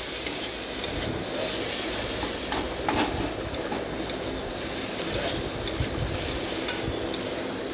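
A metal spatula stirring and scraping a thick, dry vegetable and fish-roe mixture around a metal wok (kadai) over the heat, with a steady sizzle underneath. Now and then the spatula gives a faint click against the pan.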